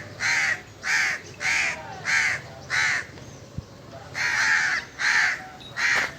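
Repeated harsh bird calls, caw-like: five in quick succession, a pause, then three more.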